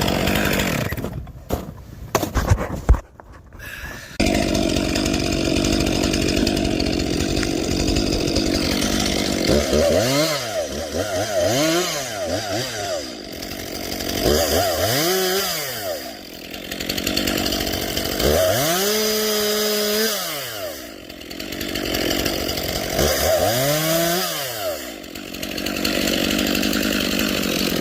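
Chainsaw cutting wood at full throttle, with abrupt breaks in the sound between about one and four seconds in. Through the second half the engine speed rises and falls about five times.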